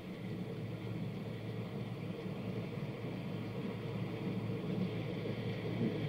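Steady low hum with hiss: the background noise of the recording, with no one speaking.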